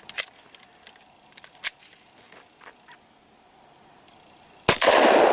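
A few sharp clicks, then near the end a single .45 ACP shot from a Glock 30 pistol: one loud crack followed by a long echoing decay.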